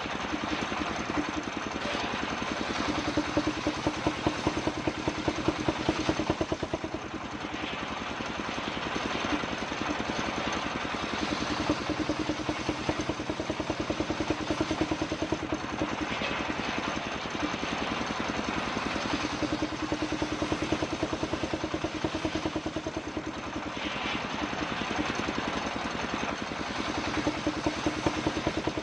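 Circular saw rig running with a steady, rapid pulsing machine drone while its blade rips kapok wood into boards; the cutting noise swells every few seconds as the wood is fed through.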